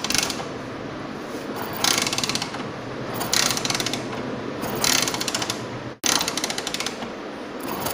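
Hero Passion Pro motorcycle's kick-starter kicked about five times, each kick a short burst of rapid ratcheting clicks as the engine turns over. The engine is spun to make the alternator's output wire spark, a test of whether the stator is producing current.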